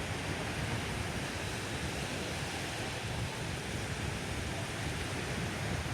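Steady rushing noise of sea surf, with wind buffeting the phone's microphone.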